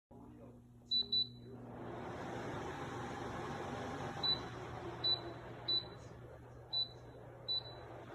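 Dreo bladeless tower fan running with a steady rush of air that builds over the first couple of seconds. Its control panel gives seven short high beeps as settings are pressed, two close together about a second in, then five more spread out.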